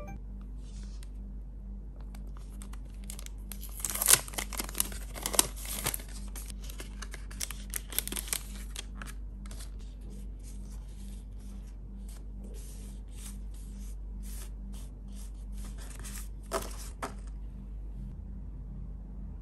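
Transparent plastic stickers crinkling and rustling as hands shuffle and spread them over a paper journal page, with dense crackling for a few seconds near the start and scattered light ticks after it, plus a short burst of crackling near the end.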